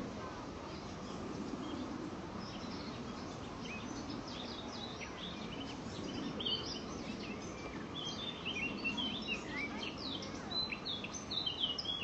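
Birds chirping in many short, quick notes, sparse at first and getting busier in the second half, over a steady low outdoor background noise.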